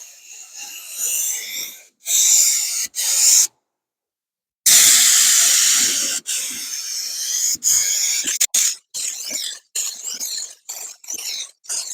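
Compressed-air paint spray gun hissing in bursts as the trigger is pulled for spray passes: a few short bursts, one longer pass about five seconds in, then a run of quick short bursts, each stopping abruptly.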